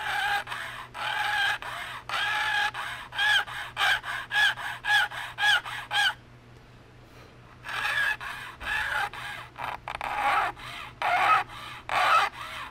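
Round file pushed back and forth across a Luger's checkered wooden grip panel, chattering with a squealing pitched tone on each stroke as it grabs and releases the wood like a bow on a violin. The strokes come about twice a second, stop for about a second and a half about six seconds in, then resume.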